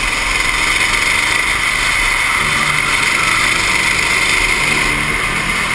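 Racing go-kart engine running at speed, heard from an onboard camera as a steady, noisy drone that changes little.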